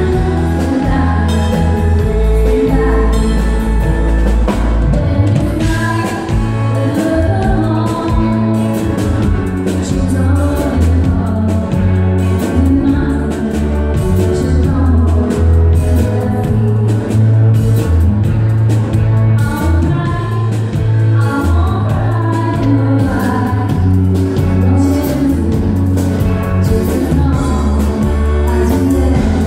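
A live band playing a song, with a woman singing lead and backing singers, over electric guitar and a drum kit.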